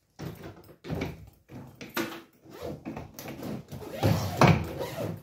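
Hard ABS plastic suitcase being handled and laid down on its side: a series of hollow knocks and clatter from the shell, with the loudest thump about four seconds in.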